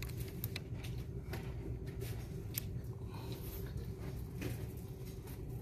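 Steady store background hum with a faint constant tone above it, and scattered light clicks of small plastic makeup packages being handled.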